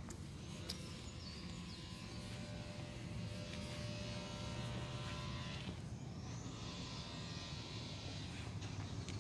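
A steady buzzing motor hum that fades out about six seconds in, over a constant low rumble.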